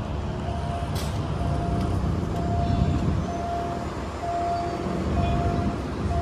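A level-crossing warning signal beeps about once a second in a single steady tone. Under it runs a low, steady rumble of city road traffic, and there is one sharp click about a second in.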